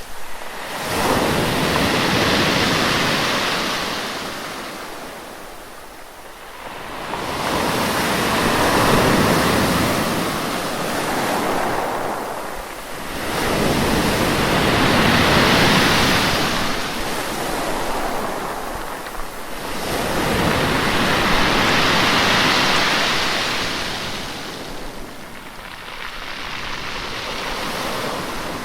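Sea waves breaking and washing back, swelling and fading about five times, roughly every six seconds.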